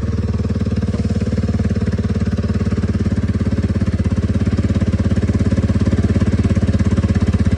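1987 Yamaha Big Bear ATV's single-cylinder engine idling steadily, with a rapid, even pulse that grows a little more pronounced toward the end. The engine is being left running to charge the battery.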